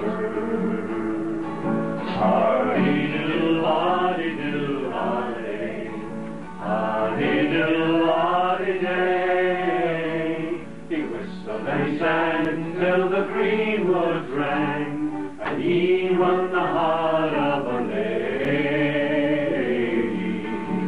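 Two men singing together, their voices carrying the whole passage with only brief breaks between phrases.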